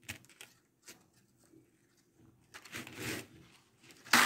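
Hands handling strings of coral beads on a work surface: light clicks and rustling, a longer rustle about three seconds in, and a sharp, louder rustling knock near the end.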